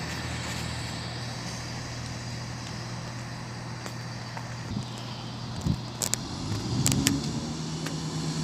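Diesel multiple-unit trains running with a steady low engine drone. From about six seconds in, a second engine note rises and grows louder as a unit approaches, with a few sharp clicks around then.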